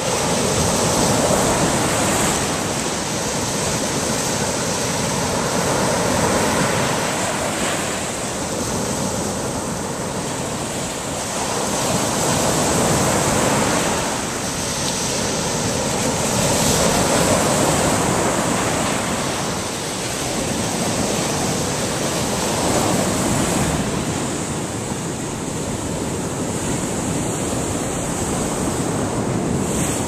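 Surf breaking on a sandy beach: a continuous rush of noise that swells and eases about every five to six seconds as the waves come in.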